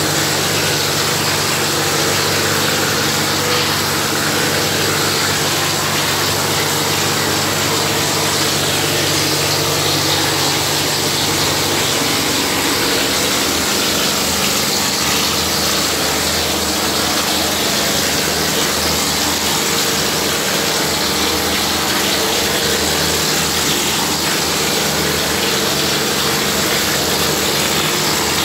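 Plaster spraying machine running steadily: its motor and pump hum while compressed air hisses from the spray lance as gypsum plaster is sprayed onto a wall. The hum changes note about twelve seconds in.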